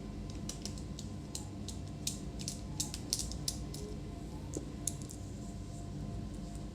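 Light, sharp clicks and taps, about a dozen over several seconds, as small parts of an Asus UX425 laptop's hinge and display assembly are handled, over a steady low hum.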